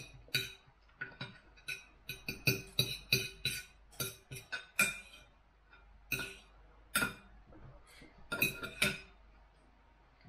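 Knife and fork clinking and scraping against a dinner plate while cutting food: many sharp clinks that ring briefly, in irregular clusters, stopping about a second before the end.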